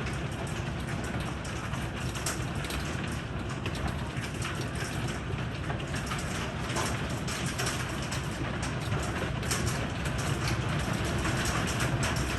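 Heavy thunderstorm rain pouring steadily, with many sharp drop impacts ticking on surfaces over a continuous low rumble.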